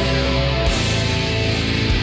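Low-tuned sludge metal played by a full band: distorted electric guitars holding heavy sustained low chords over drums, with a cymbal-heavy hit about two-thirds of a second in.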